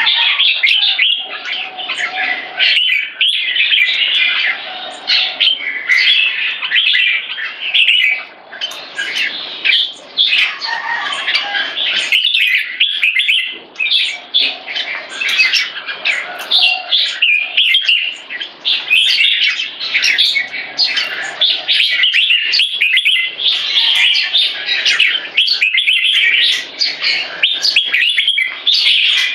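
Red-whiskered bulbul (jambul) singing and chattering almost without pause: rapid bright notes run on with only short breaks, in a burst of aggressive song.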